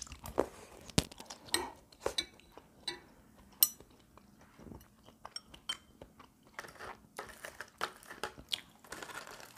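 Someone eating close to the microphone: chewing and crunching food, with metal chopsticks and a spoon clicking against bowls. Sharp clinks stand out about a second in and about three and a half seconds in.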